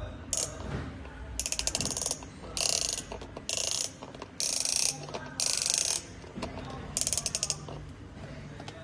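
Plastic toy steering wheel on a baby's activity cube being turned by hand, its ratchet clicking rapidly in about seven short bursts.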